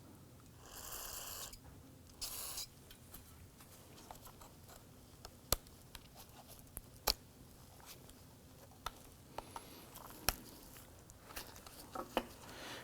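Small plastic and metal door-handle parts being handled and fitted by hand: two short scraping rustles near the start, then scattered light clicks.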